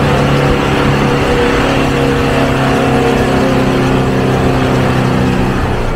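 Pickup truck's engine running steadily with tyre and road noise as it drives over a rutted, muddy dirt road.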